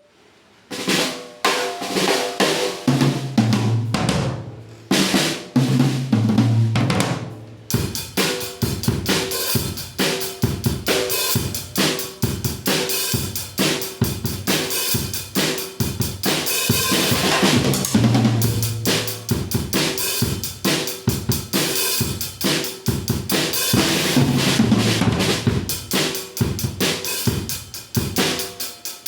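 Acoustic drum kit fitted with a Remo Encore Pinstripe head converted into an oil head. It opens with separate low, pitched drum strikes and rolls; then, about eight seconds in, a full beat starts, with bass drum, snare and cymbals, and further low tom fills later on.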